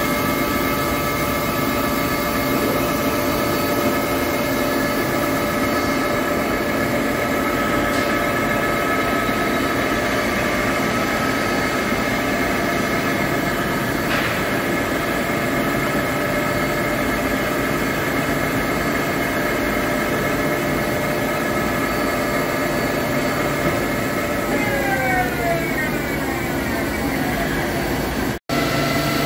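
Hankook PROTEC-9NC CNC lathe turning a long stainless steel roll: a steady whine of several tones from the spindle and drives over the noise of the cut. Near the end the whine glides down in pitch.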